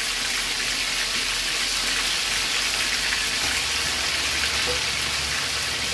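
Masala-coated chicken pieces deep-frying in hot oil in an iron kadai: a steady, dense sizzle.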